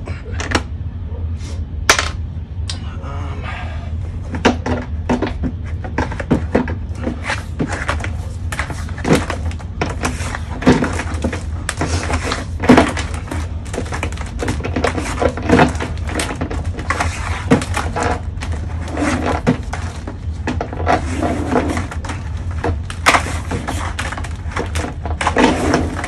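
Frequent clicks, knocks and rattles as the flexible shaft cable in its black sheath is pulled and coiled up out of the plastic drum of a Ridgid K9-204 drain-cleaning machine. A steady low hum runs underneath.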